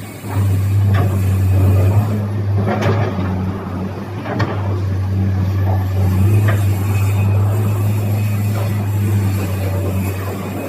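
Excavator engine running steadily with a low hum, with a few brief knocks from the machine working, about 1, 3, 4.5 and 6.5 seconds in.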